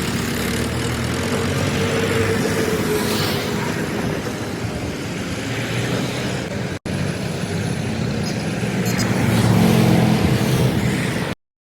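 A vehicle engine running steadily, growing louder about ten seconds in, with a brief dropout about seven seconds in; the sound cuts off abruptly near the end.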